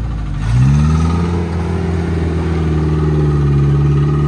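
Suzuki Samurai 4x4's engine revved hard about half a second in, then held at high revs under load as the vehicle claws up out of a muddy rut.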